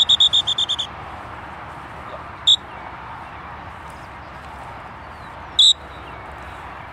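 Dog-training whistle: a quick string of short toots ending about a second in, then two single sharp toots a few seconds apart. This is the retriever whistle pattern for 'come in' followed by 'sit'.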